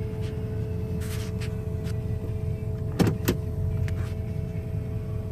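Steady low rumble of a car's engine and tyres heard from inside the cabin as it rolls slowly, with a steady hum throughout. Two sharp clicks come about three seconds in.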